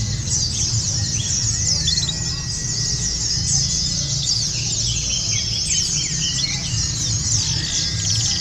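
A chorus of many white-eyes (pleci) singing at once: dense, fast, high twittering trills that overlap without a break, over a low steady rumble.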